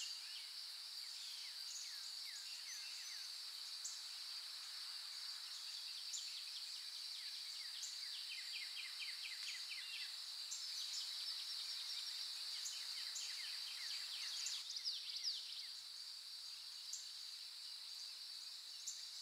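Outdoor nature ambience: a steady high insect drone with birds repeatedly chirping in short, quick series over it.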